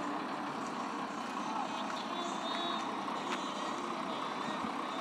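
Steady outdoor din of a busy fishing harbour, with distant motor noise. A few faint, wavering high tones come and go about two to three seconds in, with a single sharp click among them.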